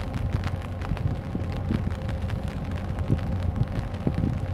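Wind buffeting the microphone in a steady low rumble that swells in gusts, with many small scattered ticks and a faint steady hum underneath.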